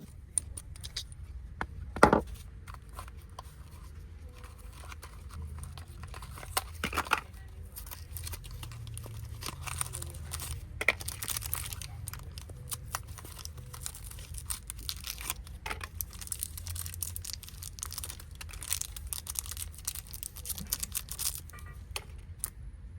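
Irregular clicks, taps and crinkling of things being handled by hand, with a few louder knocks, over a low steady hum.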